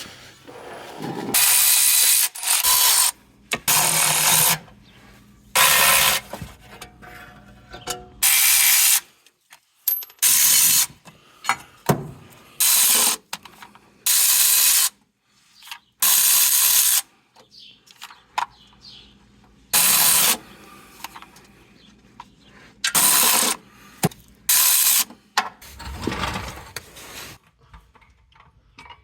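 Ratchet wrench working in repeated strokes, each burst of clicking lasting about a second with short pauses between, as bolts are loosened to take off the drive shaft.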